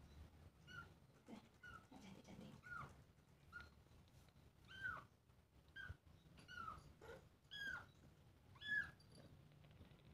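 Black munchkin kitten mewing faintly and repeatedly, about nine short high mews roughly a second apart, each rising and falling in pitch.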